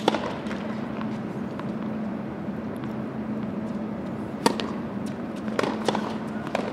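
Tennis racket striking the ball on a serve about four and a half seconds in, the sharpest pop, followed by a few lighter pops of the ball bouncing and being returned. A steady low hum runs underneath.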